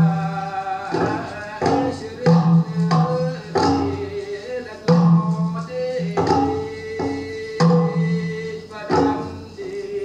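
Recording of a Temiar healing ceremony played back over speakers: the healing song (noñ) sung by the healer-medium and a chorus over a steady, regular beat of bamboo stamping tubes.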